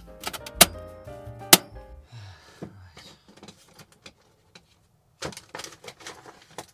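Background music with a bass line and sharp percussive hits that stops about two seconds in. Then faint knocks and rustling.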